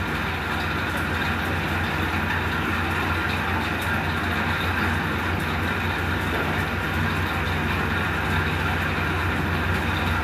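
Steady background noise with a low hum, unchanging throughout.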